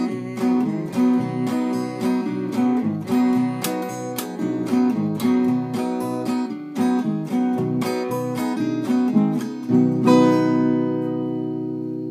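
Acoustic guitar strummed in a steady rhythm, ending about ten seconds in on a final chord that rings out and slowly fades.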